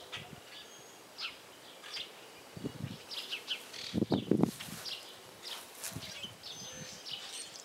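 Wild birds chirping, with short high calls scattered throughout. About four seconds in there is a brief louder, lower sound of several quick strokes.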